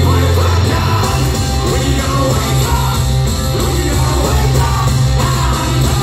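Hard rock band playing live: electric guitars, bass and drums with a lead vocal, loud and dense with heavy bass.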